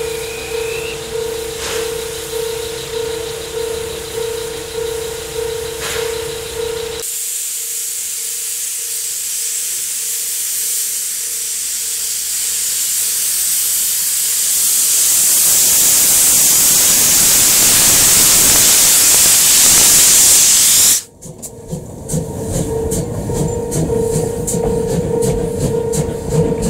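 A Japanese level-crossing bell dinging in a steady, even rhythm, then suddenly a loud hiss of steam blowing from the front of the C12 66 steam tank locomotive, likely its cylinder drain cocks, growing louder for about fourteen seconds. Near the end it cuts abruptly back to the crossing bell, with the rumble of the steam train's coaches rolling past.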